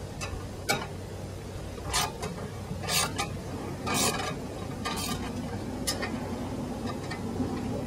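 Scattered metallic clinks and scrapes, about one a second, some with a short ring. They come from a bolted bracket on a solar tracker mount's steel tube being loosened and shifted by hand.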